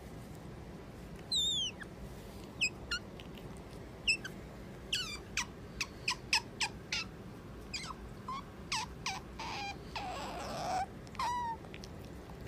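Asian small-clawed otter giving a string of short, high-pitched chirps and squeaks, each dropping quickly in pitch, coming in irregular runs from about a second and a half in. About ten seconds in there is a brief raspier, breathier squeal.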